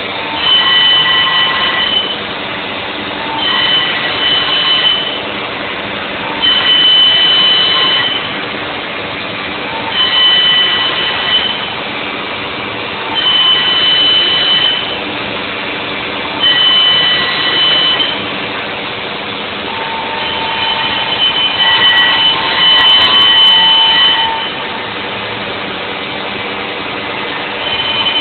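CNC router milling out the cavities of a wooden Stratocaster guitar body. The spindle runs steadily, and about every three seconds a louder stretch of a second or two brings a high whine, as the cutter makes its back-and-forth passes, with one longer pass near the end.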